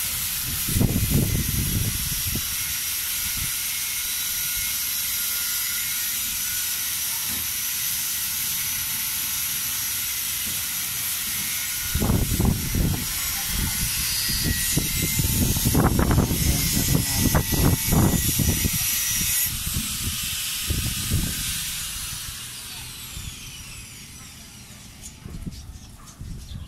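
A steady hiss that fades out near the end, with several bursts of low, muffled rumbling about a second in and again from about twelve to twenty-one seconds in.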